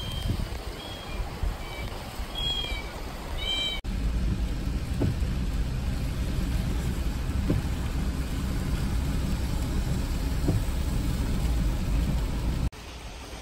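For the first four seconds, a few short high-pitched cat meows, played as a call to draw an answer from a trapped cat, over wind noise. Then a car driving on a wet road in rain, heard from inside: a steady low road and engine rumble with a faint tick every two to three seconds.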